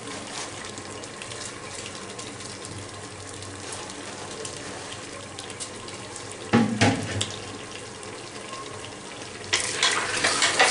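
Marinated mutton and fried onions sizzling steadily in hot oil in a pressure cooker over a high flame. A single thump comes about six and a half seconds in. Near the end a wooden spatula starts stirring and scraping through the pot, louder than the sizzle.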